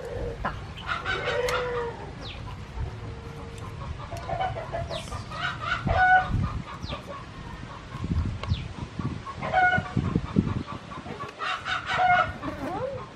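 Chickens calling several times: hens clucking and a rooster crowing.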